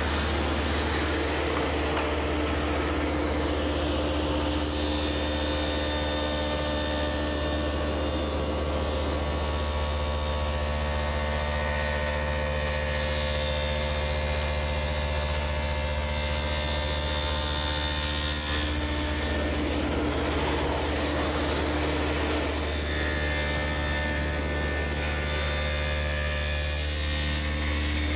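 A table saw with a stacked dado head cutter runs steadily as it cuts a 1/4-inch-deep dado across a mahogany plywood panel. The tone shifts about two-thirds of the way through.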